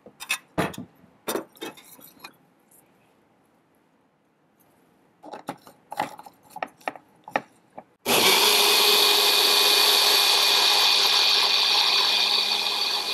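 A few light clicks and knocks as the blender jar is handled and fitted onto its base, then about eight seconds in an electric mixer grinder starts and runs steadily with a loud motor whir and a high whine, blending a green mix of herbs, coconut and whey.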